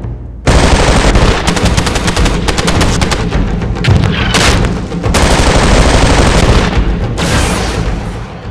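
Sustained automatic gunfire from rifles and machine guns, a rapid rattle of shots starting about half a second in, with a short break about five seconds in.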